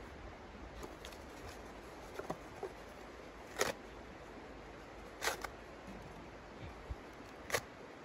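Hands working kindling in a small steel wood stove's open firebox: a few light rustles and ticks, then three short, sharp scrapes spread a couple of seconds apart.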